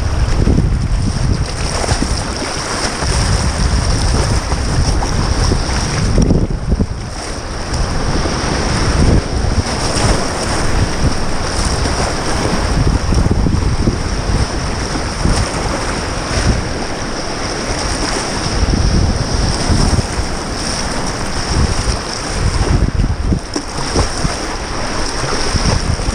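Whitewater rapids rushing loudly around a kayak, with paddle strokes splashing through the waves and a rough low rumble of water and air buffeting the microphone.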